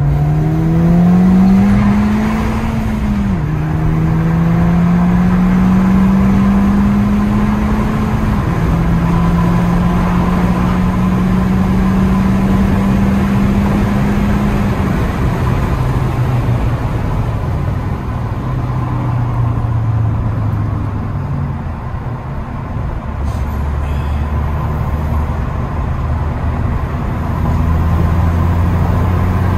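A 2015 Ford Fiesta ST's turbocharged 1.6-litre four-cylinder with its centre silencer deleted, heard from inside the cabin as the car accelerates. The engine note climbs and drops at upshifts about three and eight seconds in, then holds steady. After that it eases off and falls in pitch, over steady road and tyre noise.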